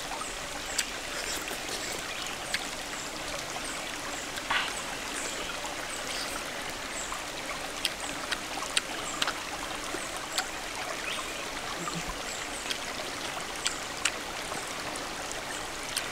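Steady rushing of a stream, with scattered short clicks and smacks of someone chewing and eating with their fingers close to the microphone.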